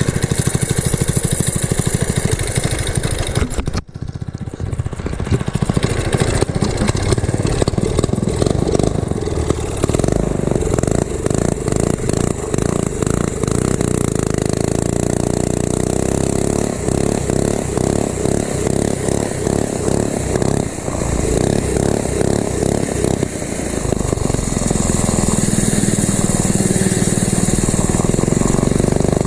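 Mini bike's small single-cylinder four-stroke engine running and revving up and down, with a brief drop-out about four seconds in.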